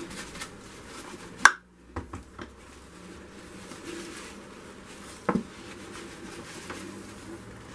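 Gloved hands wiping plastic paint squeeze bottles with a paper towel: low rubbing and handling noise with a few light clicks and knocks as the bottles are handled. The sharpest click comes about one and a half seconds in and a knock near five seconds.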